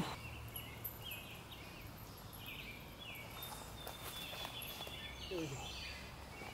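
Faint outdoor background of small birds chirping, short repeated high notes with one longer held note near the middle.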